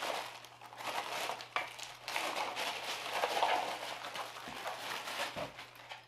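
Plastic packaging bags crinkling and rustling as power cables are pulled out of them, in uneven handling noises.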